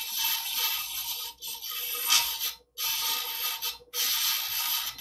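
Gray dressing brick scraping against the spinning standard sharpening wheel of a Twice as Sharp scissor sharpener, cleaning a wheel that is loaded up with metal, over the steady hum of the machine. The scraping breaks off sharply twice, once about two and a half seconds in and again near four seconds.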